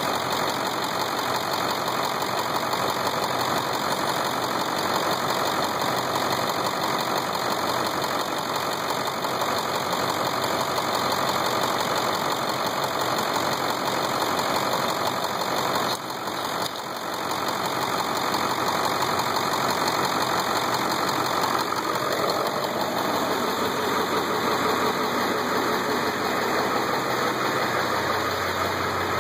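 Ford 7.3 L Power Stroke V8 turbo-diesel idling steadily with its typical clatter. The owner first took the noise for an engine knock but later found it to be normal.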